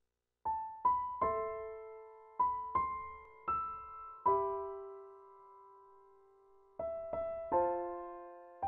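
Background piano music: single notes and chords struck and left to ring out, starting about half a second in, with one chord held for a couple of seconds midway.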